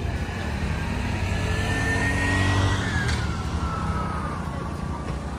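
Motor vehicle engine running steadily, with a whining tone that climbs and then drops in pitch about three seconds in, as of a vehicle going past.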